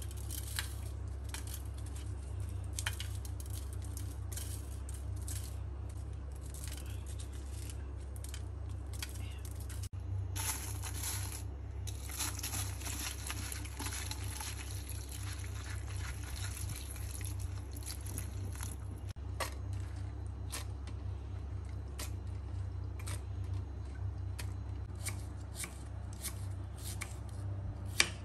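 Kitchen scissors snipping dried red chillies, a string of sharp separate clicks. About ten seconds in, tap water runs over the chilli pieces in a bowl for several seconds while they are rinsed of their seeds; then come sparse clicks again, ending with a knife striking a wooden cutting board. A steady low hum lies under it all.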